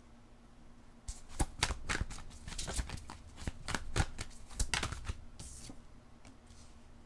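A deck of divination cards being shuffled by hand: a run of quick, crisp card snaps starting about a second in and lasting about five seconds, then fading out.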